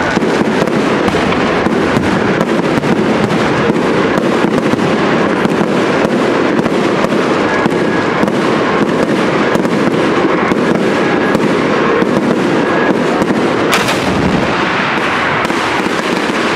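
Fireworks display crackling and banging without a break, a dense run of pops and reports, with one sharper bang about 14 seconds in.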